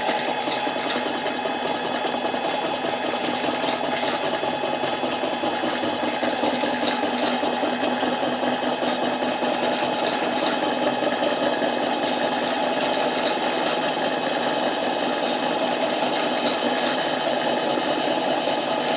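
Harbor Freight 7x10 mini lathe running steadily, its motor and gears making a dense whine, while the tool takes a 3-thousandths cut across a Husqvarna 372 chainsaw cylinder.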